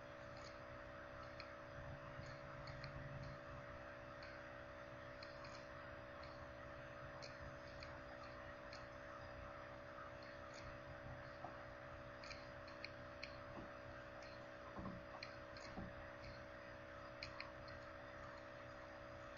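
Near silence: faint room tone with a steady low hum and scattered faint, irregular ticks.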